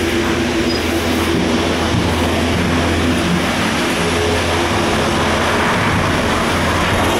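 Von Roll detachable gondola cabin running through the station on its conveyor tyres, heard from inside the cabin: a steady mechanical rumble with a low hum and a few faint steady whining tones.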